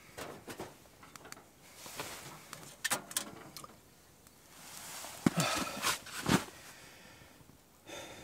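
Scattered clicks and knocks from a small metal wood stove being handled, followed by clothing rustling as the person shifts and leans back. The loudest knocks come between about five and six and a half seconds in.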